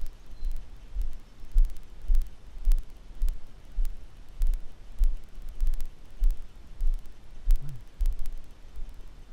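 Rhythmic low thumps, about two a second, with faint scattered clicks; the thumps stop near the end.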